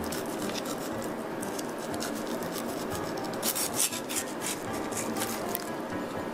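A long knife blade scraping and rubbing along the bones and skin of a bluefin tuna collar as the fatty collar meat is cut free, with a cluster of sharper scrapes about three and a half seconds in.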